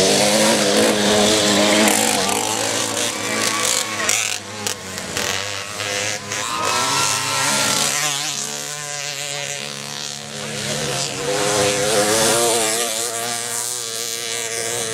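Small two-stroke moped engines revving as racers ride a dirt track, the buzzing pitch rising and falling with the throttle, several engines at once in places.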